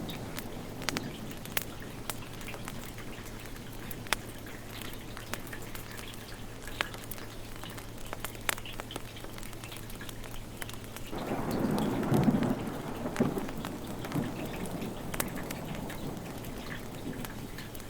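Steady rain falling, with scattered sharp ticks, and a roll of thunder rumbling for about three seconds starting about eleven seconds in.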